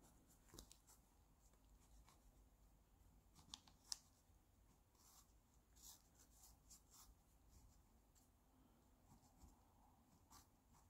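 Faint scratching of a crayon drawing on paper, in short strokes with scattered light ticks and one sharper click about four seconds in.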